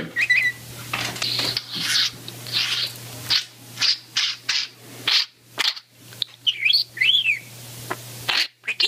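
Budgerigar chattering: a quick run of short scratchy chirps and clicks, with a few whistled notes that rise and fall, over a steady low hum.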